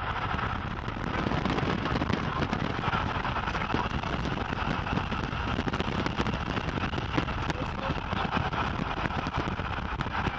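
Steady rushing noise from the storm-chase car and the wind, with a fine crackle throughout.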